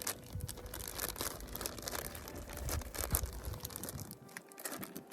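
Plastic food packaging crinkling and tearing as it is handled, with irregular small clicks and knocks. It quiets near the end.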